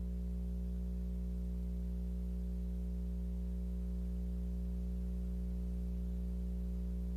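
Steady low electrical hum with a buzz of evenly spaced overtones, unchanging throughout.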